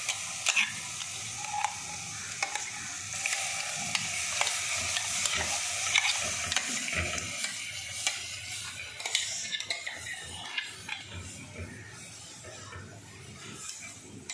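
Thick ground masala paste sizzling in hot oil with roasted chilli and coriander powder, stirred and scraped around the pot with a spatula. The sizzle dies down in the last few seconds.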